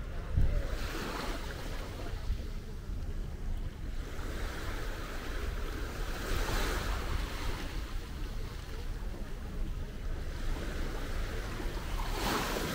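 Wind buffeting the microphone over small sea waves washing against the shore, the wash swelling three times, about every five to six seconds.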